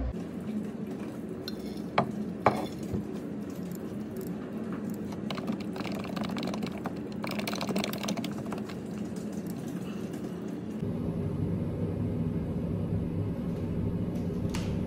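Light clicking and clinking, with two sharp clinks about two seconds in and a quick run of small clicks that fits typing on a computer keyboard. From about eleven seconds in a steady low hum takes over.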